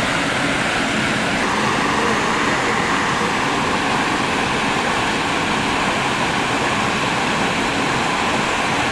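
Steady rushing of a shallow, stony stream flowing.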